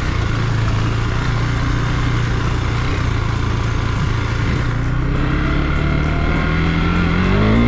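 KTM 390 Duke's single-cylinder engine running at a steady pace, then accelerating from about four and a half seconds in, its pitch rising until near the end.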